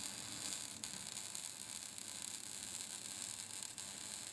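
Electric arc welding: the arc gives a steady, high, crackling hiss with a faint pop now and then.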